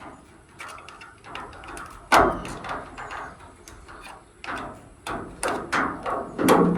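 Irregular knocks, taps and clicks of tools and parts being handled while working inside a dryer, with a loud knock about two seconds in and a quicker run of knocks near the end.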